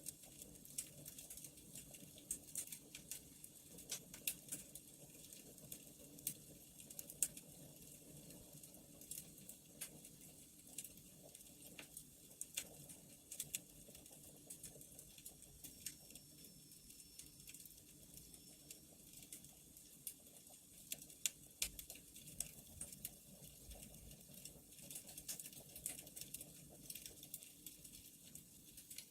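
Wood fire crackling faintly, with many sharp, irregular pops over a low, steady background.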